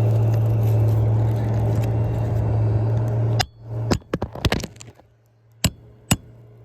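A steady low mechanical hum that stops abruptly about three and a half seconds in, followed by a quick run of sharp taps and then two separate sharp strikes of a hammer on a roofing nail being driven into an asphalt shingle.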